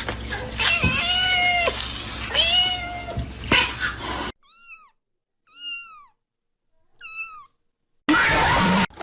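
A cat meowing loudly and repeatedly in long, drawn-out meows that rise and fall in pitch. After about four seconds it gives way to three short, quieter, higher-pitched meows spaced about a second apart. Near the end there is a brief loud burst of noise.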